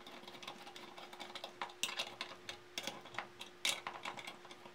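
Irregular light metallic clicks and taps of bolts, nut and a small hand tool being fitted by hand to a motorcycle footpeg bracket.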